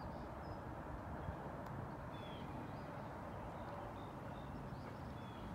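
Faint short bird chirps scattered over a steady low background rumble.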